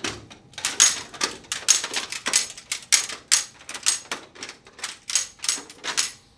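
SIG MPX CO2 airguns firing shot after shot: a quick, uneven rhythm of sharp pops, about three to four a second.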